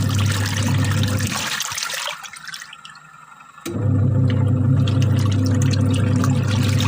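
Rushing water with a steady low hum, loud. It breaks off about a second in, leaving a weaker rush, and starts again abruptly about halfway through.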